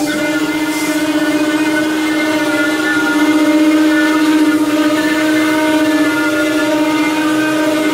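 9 kW HSD air-cooled spindle of a CNC router running at high speed as its bit carves MDF, a steady pitched whine with a layer of cutting noise over it.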